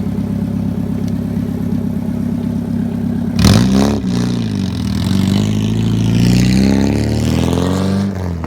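Nissan 240SX engine idling steadily, then revved hard about three and a half seconds in, the pitch jumping up and down a few times before climbing as the car pulls away and accelerates.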